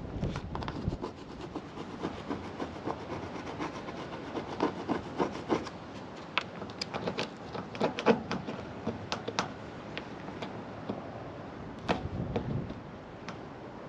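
Hands working on a truck roof: rubbing and scraping with scattered irregular clicks and knocks, the loudest knocks about eight and twelve seconds in.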